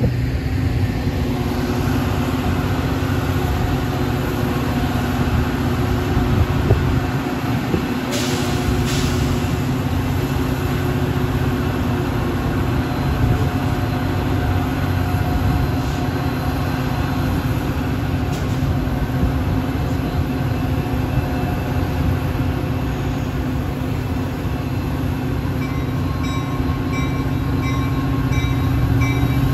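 Metra commuter train of bilevel gallery cars rolling past on the rails: a steady rumble of wheels with a low, steady hum. Near the end a grade-crossing bell starts ringing in quick repeated dings.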